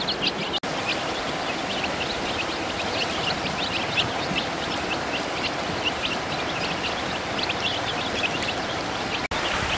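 Ducklings and chicks peeping constantly, many short high cheeps overlapping, over a steady hiss, with two brief dropouts in the sound.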